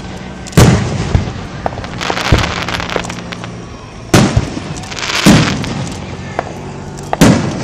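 Aerial fireworks bursting: four loud booms a second or more apart, with a stretch of crackling and smaller pops between the first two.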